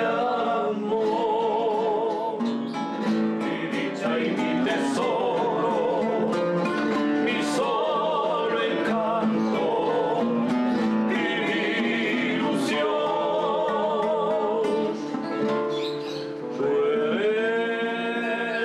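Music: a voice singing with vibrato over plucked acoustic guitar.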